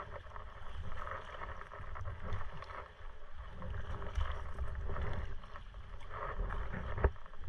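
Kayak paddle strokes in calm sea water, splashing and dripping in swells about once a second, over a low rumble. There is a sharp knock near the end.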